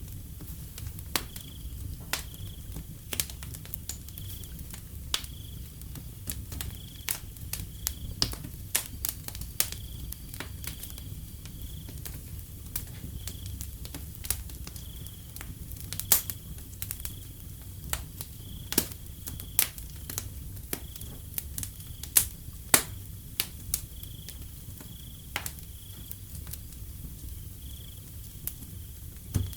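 Wood fire crackling with frequent sharp pops over a low rumble, while a cricket chirps at an even pace in the background.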